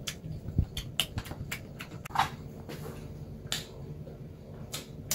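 A person chewing a mouthful of salad greens and pork close to the microphone: a string of sharp, irregular clicks and crunches.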